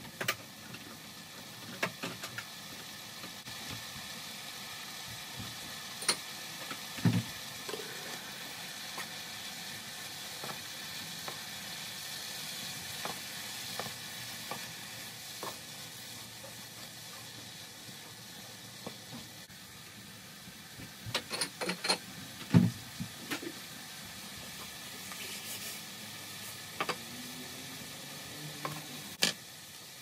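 Chicken curry (chicken pieces, peppers and mushrooms) sizzling steadily in a frying pan while being stirred with a wooden spoon, with scattered sharp knocks of the spoon against the pan, a quick cluster of them about three quarters of the way through.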